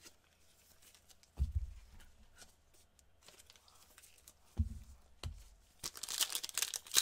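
A basketball trading card pack's wrapper being torn open and crinkled by gloved hands, the crinkling starting near the end. A few dull knocks of the pack and box being handled on the table come before it.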